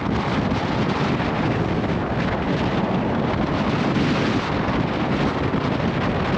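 Storm-strength wind blowing hard across a sailboat at anchor, buffeting the microphone in a steady, loud rush of noise.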